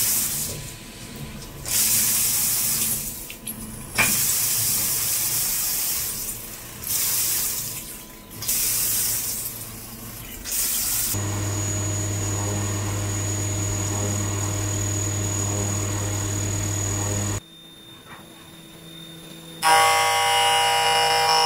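CNC mill cutting an aluminum part under flood coolant: loud hissing coolant spray and splashing that starts and stops abruptly, then a steadier machine hum from about halfway. Near the end a ringing, pitched tone sets in, typical of the cutter singing against the aluminum.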